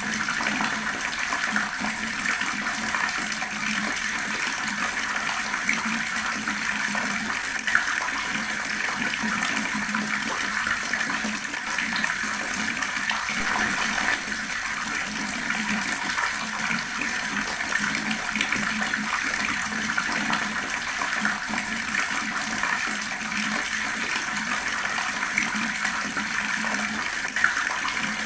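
Water running steadily from an outdoor tap, splashing and gurgling without pause.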